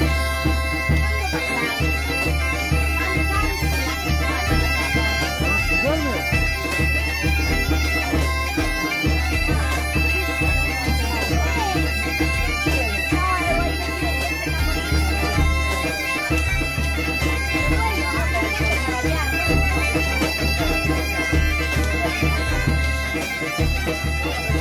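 Background music: held drone-like tones over a steady pulsing bass.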